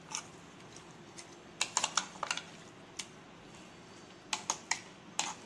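Metal spoon clicking against a plastic bowl while stirring prawns in a thick marinade: about a dozen short, sharp clicks coming in small bunches.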